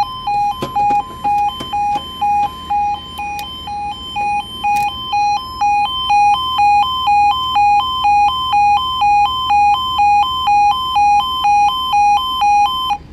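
Railway level crossing yodel alarm, a loud two-tone warning alternating between a lower and a higher note about twice a second. It sounds while the barriers rise again and cuts off suddenly near the end.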